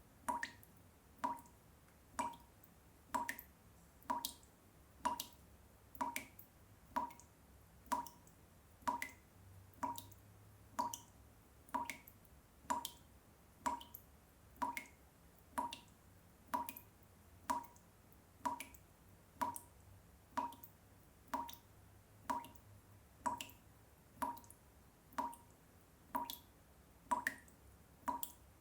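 Water dripping from a washbasin tap: a steady, even run of single drops, about one a second, each a short plink.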